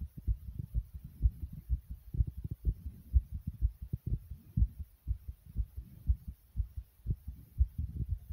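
Human heartbeat recorded close up: a run of dull, low thumps, about two a second.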